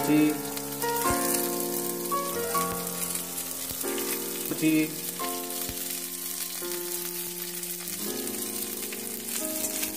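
Chopped vegetables sizzling steadily in hot oil in a metal kadai as shredded cabbage is pushed in. Background music of slow held notes plays over it, changing about once a second.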